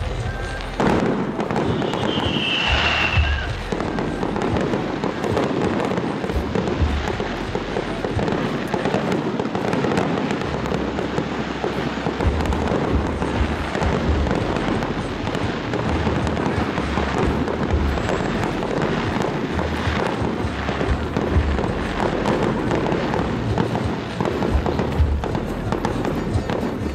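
Aerial fireworks display: a continuous run of bursting shells and dense crackling and popping, with a brief high whistle about two seconds in. Music plays underneath.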